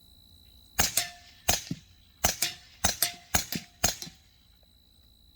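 Suppressed 9mm Grand Power Stribog carbine firing a quick string of about seven shots in a little over three seconds. Each shot is a sharp crack with a short tail. The modular 9mm suppressor in its full configuration keeps the shots quiet.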